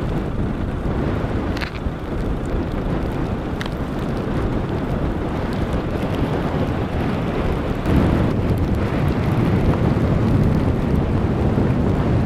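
Blizzard wind blowing and buffeting the microphone in a steady low rumble, gusting stronger about eight seconds in, with a couple of faint ticks early on.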